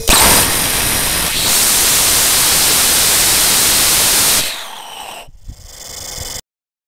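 Small 3D-printed, bronze-infused heat-sink rocket engine on a test stand: it lights with a sudden bang, then fires with a loud steady rushing hiss that grows louder about a second and a half in. After about four seconds the engine shuts down and the noise falls to a fainter hiss, with a click near the end.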